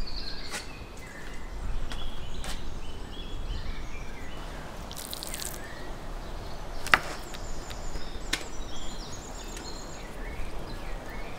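A few sharp knocks of raw beef and a knife being handled on a wooden cutting board, the loudest about seven seconds in, over outdoor background with birds chirping.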